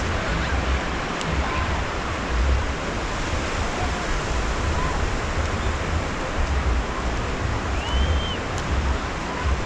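Surf washing onto a sandy beach, a steady hiss of breaking waves, with wind gusting and rumbling on the microphone. A short high bird call sounds about eight seconds in.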